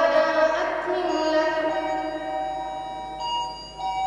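A boy's voice chanting Quran recitation, drawing out a long melodic vowel with slow steps in pitch that fades out about three seconds in, followed by a couple of shorter, softer held notes near the end.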